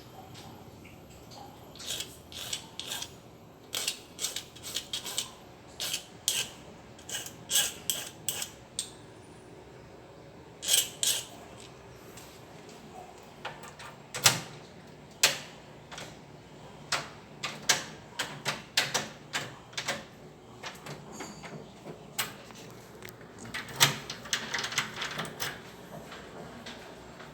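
Irregular sharp clicks and taps of hand work on a hand-cut tetra key copy being corrected, with a short stretch of scraping near the end.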